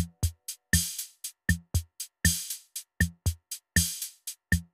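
Background music: a programmed drum beat playing on its own, about four hits a second with a heavier hit every second and a half.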